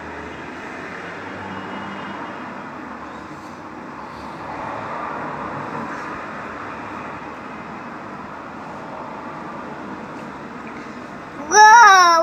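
Steady rushing outdoor city noise that swells a little midway through. Near the end a loud, high-pitched voice cries out, its pitch rising and falling.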